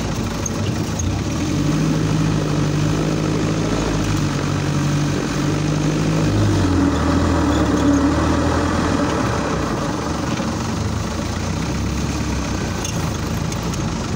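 Off-road trial vehicle's engine running at low speed, heard from on board, its note dropping to a lower pitch about halfway through.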